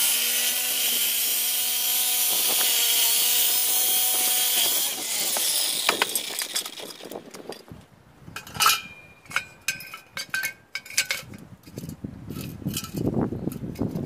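Power miter saw cutting through metal channel: a loud, steady, screeching cut with the motor hum under it for about five seconds, then the blade spins down. After that, light metallic clinks and knocks as the cut metal pieces are handled and set down.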